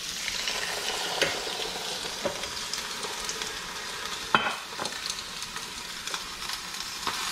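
A frozen, oil-sprayed salmon fillet sizzling steadily on a hot electric griddle plate, with a few sharp clicks and pops, the loudest about four seconds in.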